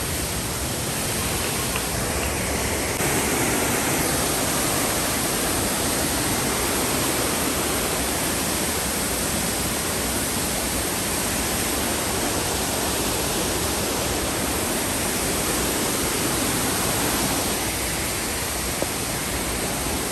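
Steady rush of fast-flowing water from a waterfall, a constant noise that grows slightly louder about three seconds in.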